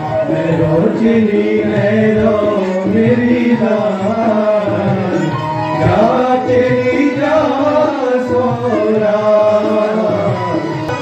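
Live Ramlila stage music: a voice singing over tabla, with steady held notes sounding underneath throughout.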